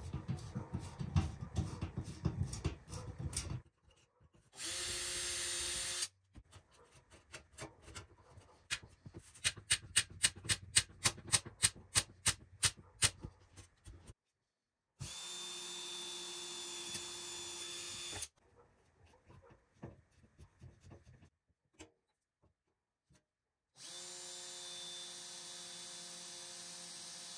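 Makita cordless drill running in several short bursts as it drives through a panel into wooden legs, with a steady motor whine in each run. In the middle comes a stretch of sharp regular clicking, about four a second. At the start there are scattered knocks and scraping.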